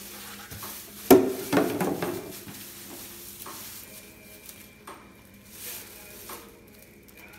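A sharp knock about a second in, then a short burst of rustling and scuffing in straw bedding, followed by quieter shuffling footsteps and hooves in the straw.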